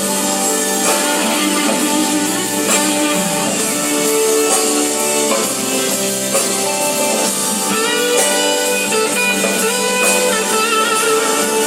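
Live band playing an instrumental blues-rock passage: an electric guitar plays lead over drums, with held notes that waver and bend near the end.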